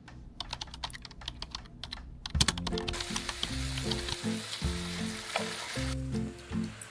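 A run of quick sharp taps and clicks. About two seconds in, background music with a steady repeating bass line comes in. Under it, meat sizzles in a hot pan until it stops suddenly about six seconds in.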